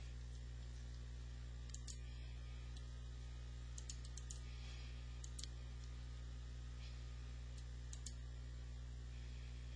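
Computer mouse clicking over a steady low electrical hum: a pair of clicks about two seconds in, a quick run of clicks around four seconds in, and another pair near the end.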